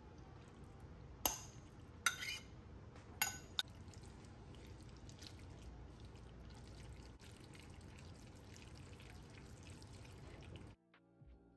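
Kitchen tableware clinking: three or four sharp, ringing knocks in the first few seconds, then a faint steady background. Music comes in near the end.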